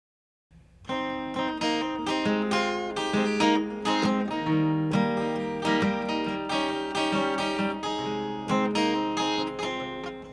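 Acoustic guitar strummed in a steady rhythm, playing the intro of a song; it starts about half a second in.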